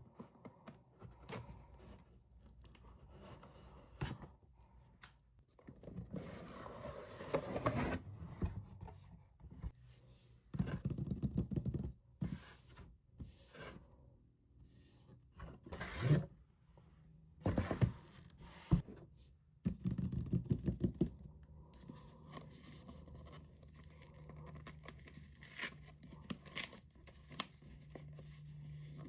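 Product packaging being opened by hand: cardboard and wrapping tearing and scraping in several bursts, among many small clicks and knocks of handling, then quieter handling over a faint low hum.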